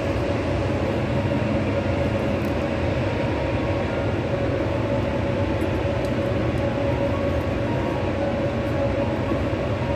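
Loud, steady machinery drone with a constant hum, the background noise of an industrial plant.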